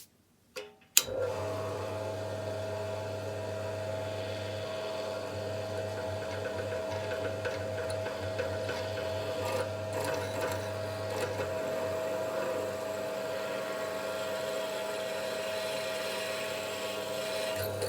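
Electric drill switched on with a click about a second in, then its motor running steadily with a constant whine and low hum while drilling holes in aluminium round bar.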